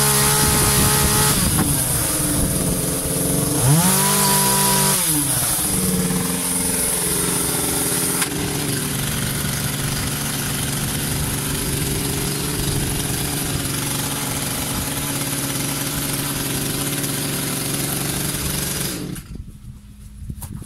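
Rented two-stroke chainsaw revving high for the first second or so, then dropping back. It revs up and down once more about four seconds in, then runs at a steady fast idle. It cuts off suddenly near the end. The idle is set so high that the chain keeps turning without throttle.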